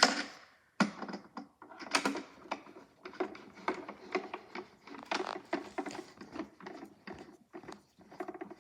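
Small screws being turned in finger tight on a plastic toy washing machine, with many quick, irregular light clicks and rattles of plastic parts and hardware.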